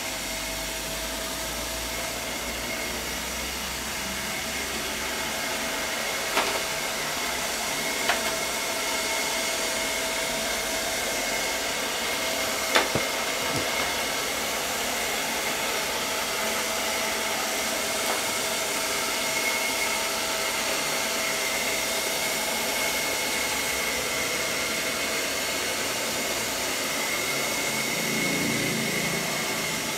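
Chuwi ILIFE V5S robot vacuum running steadily as it sweeps up a bare hard floor: an even whirr with a steady whine. A few sharp clicks stand out, around six, eight and thirteen seconds in.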